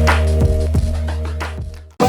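Background music with a steady beat and deep bass, fading out near the end.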